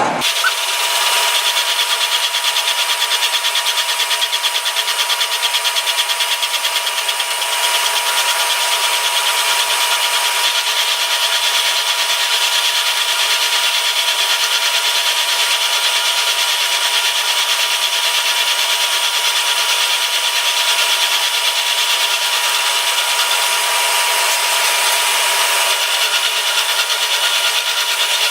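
Milling machine taking a slow cleanup pass across the bottom of a vise's movable jaw: a steady cutting noise with a constant high tone running under it.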